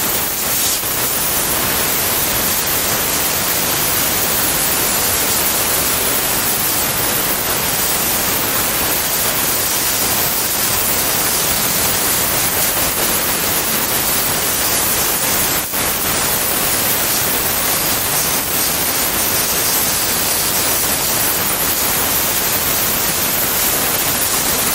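Compressed-air blow gun hissing steadily as it blows sanding dust off a carved wooden sign. The blast dips briefly a couple of times and cuts off suddenly at the end.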